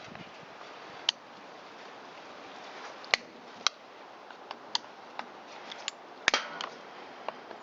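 Irregular sharp clicks and taps of hand tools and small metal parts working on the chainsaw's engine mounting screws, about a dozen spread out, the loudest about six seconds in.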